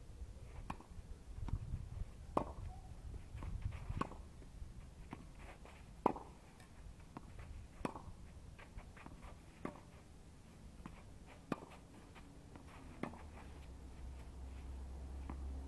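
Tennis rally on a clay court: sharp racket strikes on the ball about every two seconds, with fainter bounce ticks between them. A low rumble comes in near the end.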